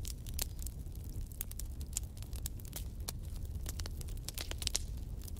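Wood fire burning in a fireplace, crackling with irregular sharp pops and snaps over a low, steady rumble.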